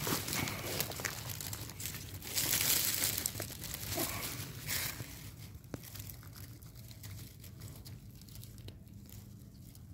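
Dry leaf litter and twigs rustling and crackling as a hand pushes through them to pick an early morel mushroom, loudest about two to three seconds in, then thinning to a few faint crackles.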